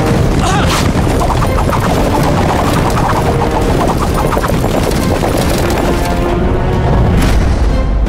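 Dramatic battle music with a low rumble and heavy hits: the sound effects of horse-drawn war chariots charging. The loudest hits come about a second in and again near the end.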